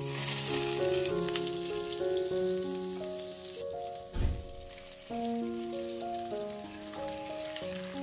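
Butter sizzling and foaming in a hot frying pan as raw chicken thighs are laid into it, with a dull thump about four seconds in. Background music with a steady melody plays over it.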